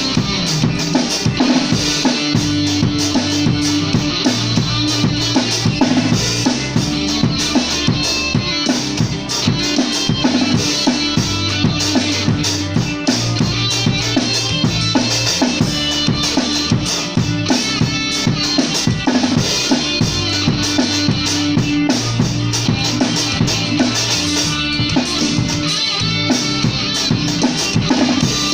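Band music with a drum kit keeping a steady beat over a bass line that shifts between held notes.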